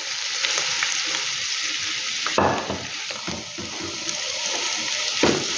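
Diced raw chicken sizzling in hot oil and ginger-garlic paste in a wok, a steady hiss, with the spatula stirring and scraping the pan twice, about halfway through and near the end.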